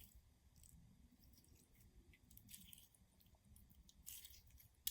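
Near silence with faint, scattered sticky clicks and squishes of slime being worked by hand, a little livelier about four seconds in.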